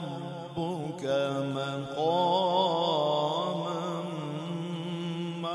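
A male qari reciting the Quran in the drawn-out melodic style, holding long ornamented notes with a wavering pitch. About two seconds in the voice rises into a louder, higher run.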